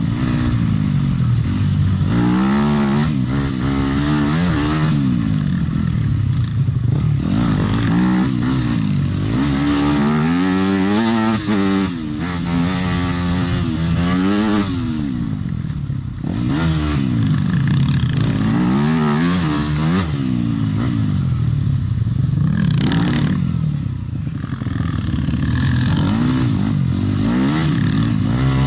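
Yamaha YZ250FX single-cylinder four-stroke dirt bike engine being ridden hard, its pitch rising and falling over and over as the throttle is opened and shut and the gears change, with some clatter from the bike over the rough trail.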